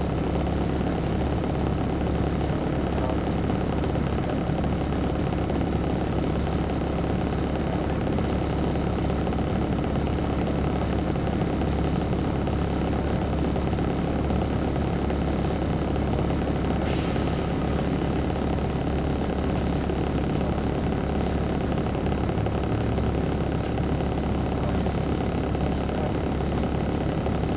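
Caterpillar C13 ACERT diesel engine of a 2007 MCI D4500CL coach running steadily with a low drone, heard from on board. A brief hiss comes about two-thirds of the way through.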